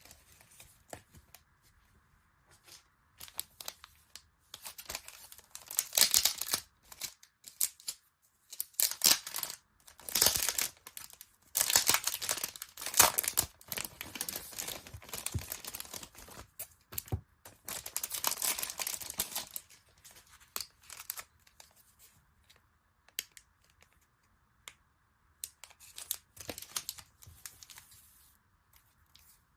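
Merchandise packaging being torn open and crinkled by hand, in several bouts of ripping and rustling with short clicks between them.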